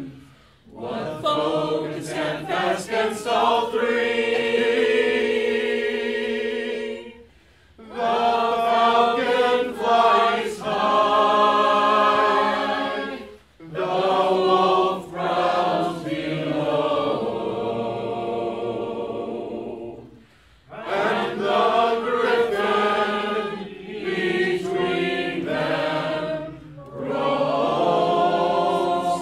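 A man singing unaccompanied, in long held phrases with short breaks for breath about every six or seven seconds.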